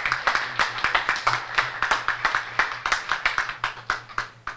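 Audience applauding, many hands clapping, which cuts off abruptly near the end.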